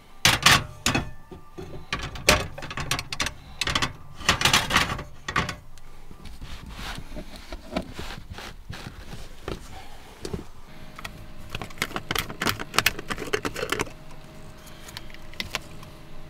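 A metal frying pan and a portable cassette gas stove being handled: clanks as the pan is set on the burner grate, then a run of quick clicks and knocks.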